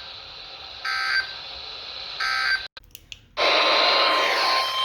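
NOAA Weather Radio SAME data bursts, short warbling digital screeches about 1.4 s apart, sounding the end-of-message code of a weather alert. A couple of clicks follow. Then, about three and a half seconds in, a burst of static begins with the steady 1050 Hz weather-radio alert tone under it, announcing the next warning.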